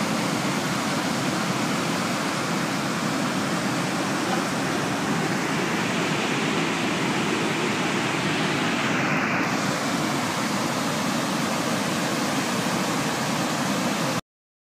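Water rushing in a steady, unbroken torrent through the open spillway gates of a reservoir dam and churning in the river below. It cuts off suddenly near the end.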